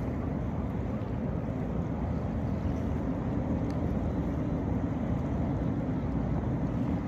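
Steady low rumbling noise over open water, with no clear engine note or voice.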